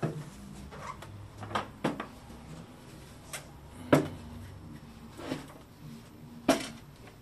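Knocks and clunks of a heavy InMotion V11 electric unicycle being tipped over and handled on a wooden tabletop, its shell and tyre bumping against the table, about half a dozen separate knocks. The two sharpest come about four and six and a half seconds in.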